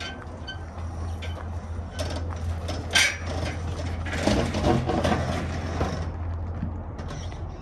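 Small rolling car chassis pushed by hand down steel trailer ramps and onto gravel: a sharp clank about three seconds in, then crunching and rattling as the tires roll off the ramps onto the gravel, over a steady low hum.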